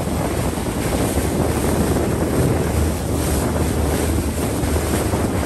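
Wind buffeting the microphone: a steady, low rumbling noise without breaks.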